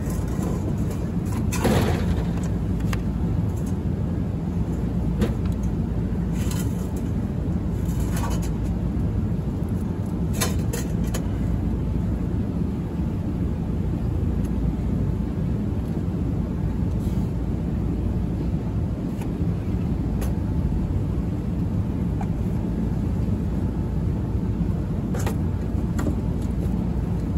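Steady low mechanical drone, with a few sharp metal knocks and clanks from a three-phase electric motor being handled and set on its mounting base.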